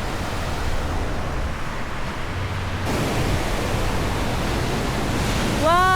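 Ocean surf breaking on a sandy beach: a steady rush of waves that gets a little louder about three seconds in.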